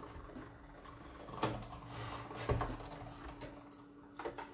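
Die-cutting machine running a die and paper through its rollers and back: faint low rumbles with a few knocks.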